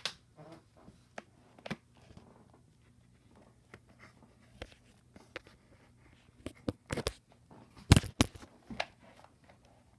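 Handling noise: scattered light clicks and knocks, turning into a cluster of sharper clacks about seven to eight seconds in as plastic game cases are moved about.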